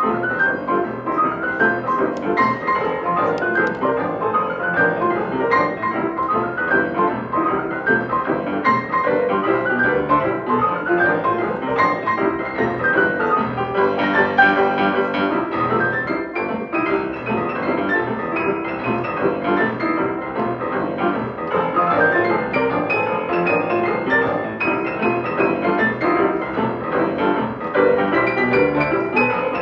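Grand piano played by several children at once in a boogie piece, a steady stream of notes with rising figures in the second half.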